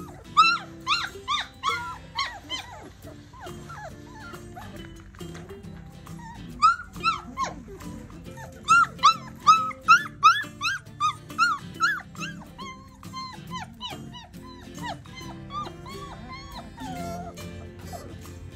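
Four-week-old Bernedoodle puppies yipping and whining in quick runs of short, high calls that rise and fall in pitch. One burst comes right at the start and a longer one in the middle, with softer whines after it. Background music plays underneath.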